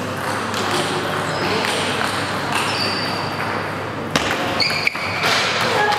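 Table tennis ball knocking a few times, single clicks rather than a steady rally, over the background murmur of voices in a sports hall.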